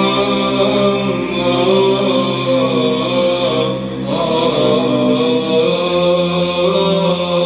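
Men's voices singing Orthodox liturgical chant, a slow melody in long held notes over a low sustained note; the low note steps up to a higher pitch about three-quarters of the way through.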